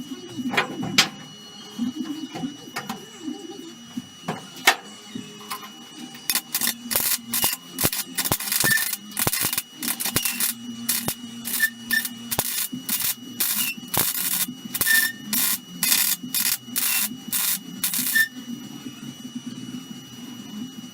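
A run of short MIG welding bursts, tack or stitch welds on steel body panels. Each is a brief crackling hiss, repeated more than a dozen times at a steady pace from about six seconds in until near the end.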